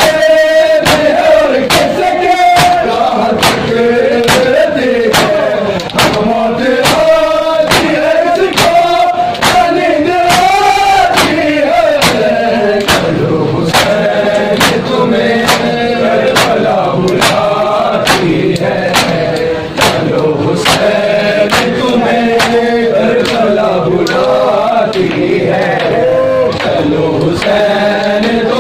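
Crowd of men chanting a mourning lament in unison while beating their chests in matam. The hand strikes land together in a steady beat, a little under two a second.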